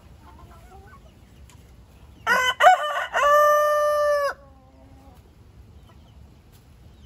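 A rooster crows once, about two seconds in: a few short choppy notes, then one long held note lasting about a second.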